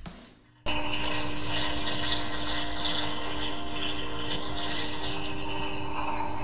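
Parkside bench grinder running with a steel blade held against the wheel: a steady motor hum under a hissing grind of metal on stone. It cuts in abruptly about half a second in.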